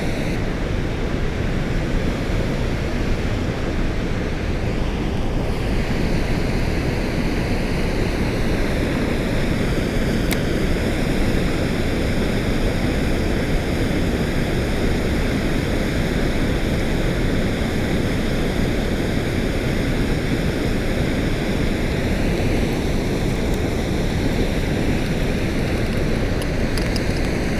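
Steady rush of water pouring over a river spillway.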